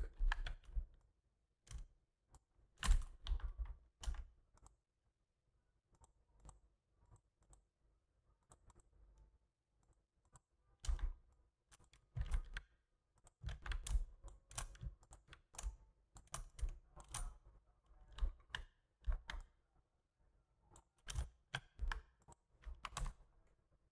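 Computer keyboard typing in irregular short runs of keystrokes, falling quiet for several seconds about a fifth of the way in, then picking up again more densely.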